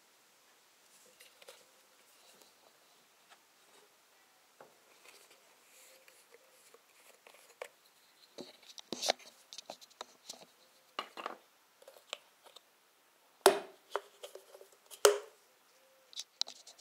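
Hands working a metal tin of engine oil open: rustling handling, then a series of sharp clicks and snaps as the red seal comes off and the plastic pour spout is pulled up, the two loudest snaps in the last few seconds.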